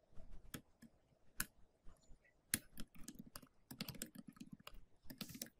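Computer keyboard typing: faint, irregular keystrokes with short pauses between them.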